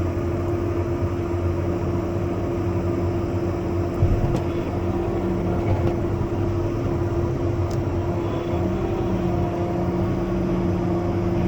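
Tractor engine running steadily under hydraulic load while the bale stacker wagon resets itself for refilling. A steady hum with a strong tone, a deeper strain that comes and goes twice, and one knock about four seconds in.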